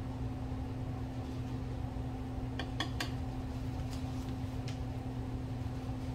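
Steady low machine hum in a small room, with a few faint light clicks around the middle.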